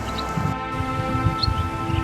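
Background music: sustained layered chords held steadily.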